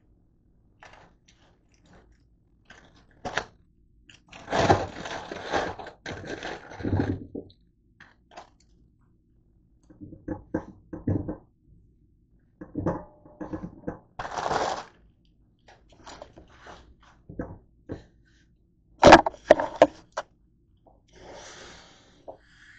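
Kitchen items being handled at a stainless steel sink: irregular knocks, scrapes and rattles. Near the end the tap starts running onto a plastic colander of grapes.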